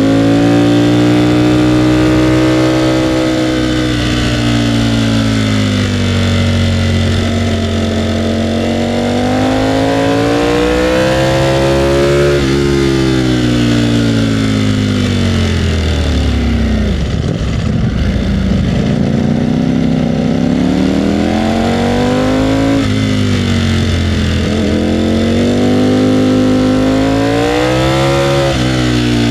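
Ducati Panigale V4R's 998 cc V4 engine under way, its revs climbing and falling repeatedly as the bike is ridden through a run of bends. The pitch breaks suddenly a few times at gear changes, and there is one long fall to low revs about two-thirds of the way through before it pulls up again.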